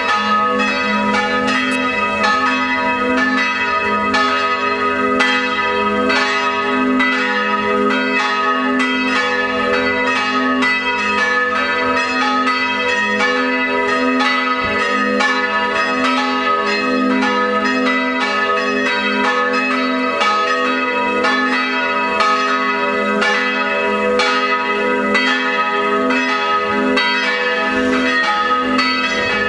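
Three swinging church bells, tuned A-flat, B and E-flat (one cast in 1640, the others in 1945 and 1952), ringing together in a continuous festive peal driven by an electromechanical ringing system. Their strikes overlap in a steady, even clangour with no pause.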